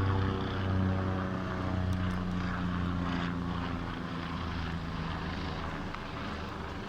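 Helicopter flying past, a steady drone of rotor and engine that slowly fades.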